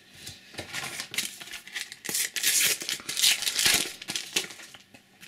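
Rustling and crinkling of a Panini sticker packet being torn open, with paper stickers handled and dropped onto a pile. The rustle is loudest from about two seconds in.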